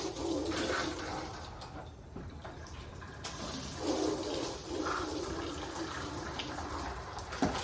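Water spraying from a pure-water hose as windows are rinsed, a steady hiss and splash that swells twice.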